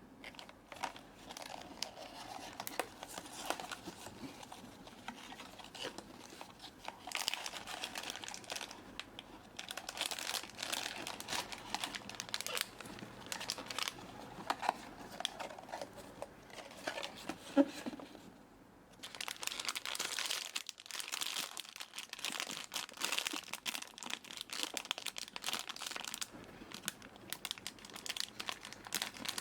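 Blind-box packaging crinkling and tearing as it is unwrapped by hand, irregular and crackly, with a brief pause a little past the middle.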